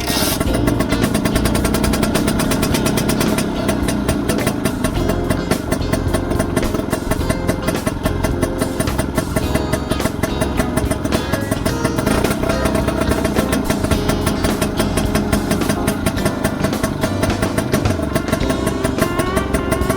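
Small-frame Vespa 100's two-stroke single-cylinder engine running steadily, with rapid, even firing pulses.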